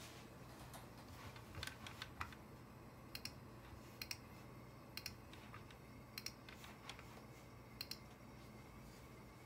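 Faint clicks of computer keys and buttons being pressed, mostly in quick pairs about a second apart, with a short flurry near the start, over a low steady hum.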